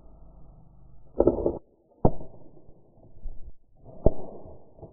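Muffled knocks and a short rattle from an airsoft player moving with his rifle: a quick rattling burst about a second in, then two sharp knocks.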